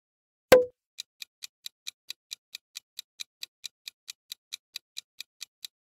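A single sharp pop with a brief ring about half a second in, then a countdown timer's clock-tick sound effect, even ticks at about four to five a second.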